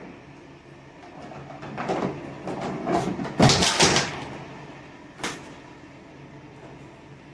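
A run of rattles and knocks that builds, peaks with a loud thump about three and a half seconds in, then dies away, followed by a single sharp knock a little after five seconds.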